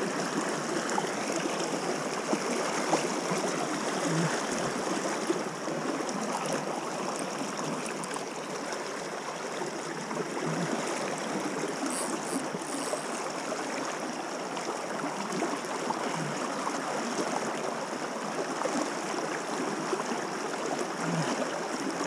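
Small fast river rushing steadily over a shallow stony bed.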